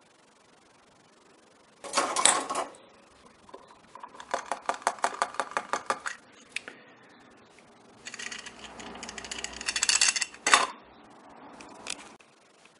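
Small metal tools and parts being handled on a workbench during soldering: a short clatter about two seconds in, then a quick run of rapid ticks, then more scraping and rattling that ends in a couple of sharp clicks.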